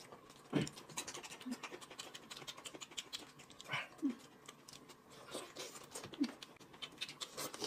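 Two people eating buckwheat noodles and a roast chicken leg: wet chewing and lip-smacking made of many small clicks, with a few short low murmurs.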